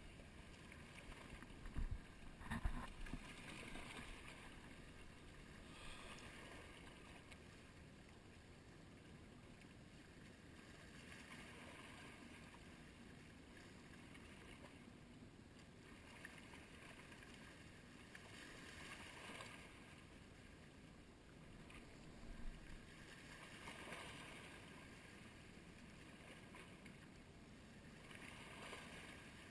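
Faint small waves lapping and washing against a rocky shoreline, swelling every few seconds. There are a couple of short knocks about two seconds in.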